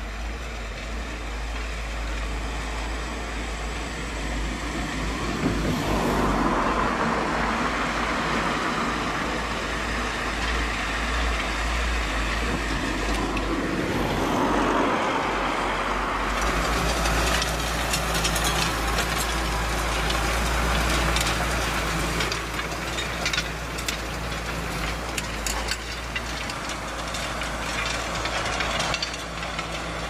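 Tractor diesel engine running steadily under load while pulling a trailed disc cultivator through dry soil, swelling louder twice as it draws near. A light metallic clatter from the implement runs through the latter half.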